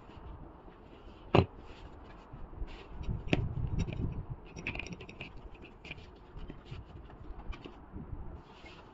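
Handling noise of gloved hands working a PVC garden hose joint fitted with wire clips: rustling and scraping with scattered small clicks, and one sharp click about a second and a half in.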